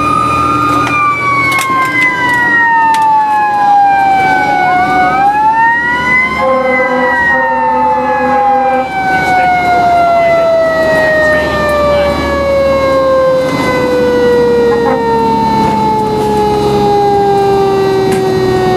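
A fire engine's mechanical siren winds up briefly about five seconds in, then coasts down in one long, slowly falling wail. A steady horn blast sounds over it for a couple of seconds, and the truck's engine rumbles underneath, heard from inside the cab.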